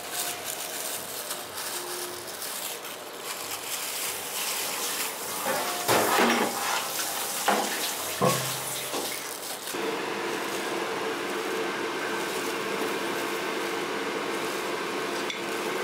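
Kitchen noise: a steady rush like a tap running into a sink, with a few knocks and clinks of dishes about six to nine seconds in and a steady hum joining about ten seconds in.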